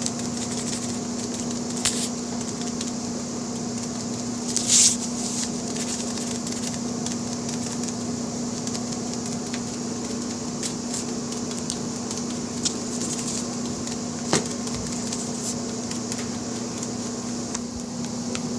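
A steady mechanical hum with a low even tone, broken by a few faint clicks and one short rustle about five seconds in.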